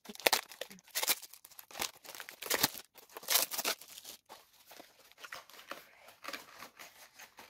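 Brown paper and plastic wrapping being torn and crinkled open by hand, in a quick run of sharp rustling tears over the first four seconds, then softer rustling as the paper is handled.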